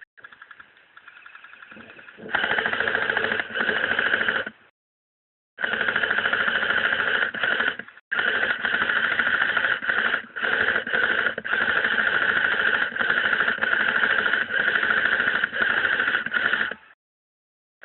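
Airsoft electric rifle firing long full-auto bursts, a fast mechanical rattle of the gearbox cycling, broken by a pause about four and a half seconds in and a brief stop around eight seconds.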